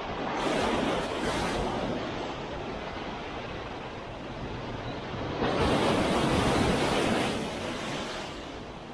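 Outdoor rush of wind and surf, swelling louder twice: once about half a second in and again from about five and a half seconds in for a couple of seconds.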